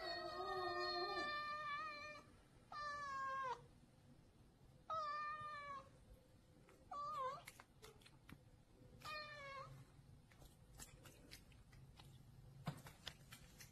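Domestic cat meowing five times. The first call is long, about two seconds, and the later ones are shorter, several dropping in pitch at the end. A few faint clicks follow near the end.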